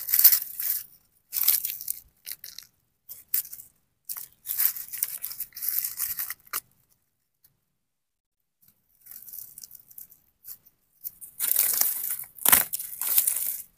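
Crumbly rotten wood and soil crackling and scraping as a gloved hand pulls it apart, in irregular bursts with a silent gap in the middle and a louder stretch near the end.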